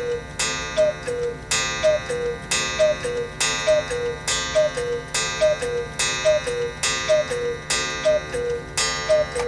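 Hones 8-day Black Forest cuckoo clock striking the hour. Its two-note cuckoo call, high then low, sounds about once a second, each call paired with a ringing gong strike, about ten times in a row.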